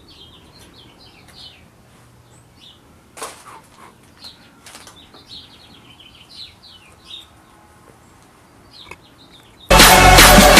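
Small birds chirping repeatedly in the background, with a few light knocks, then loud electronic music starts suddenly near the end.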